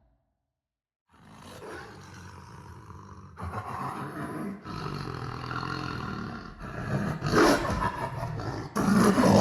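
Lion roaring, in an edited sound-effect recording: after about a second of silence a low, rough growl starts and builds, swelling into louder roars about seven seconds in and again near the end.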